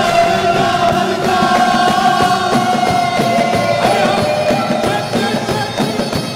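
Live Arabic song with orchestra: a male lead voice and a mixed choir singing held, gliding melody lines over a steady percussion beat.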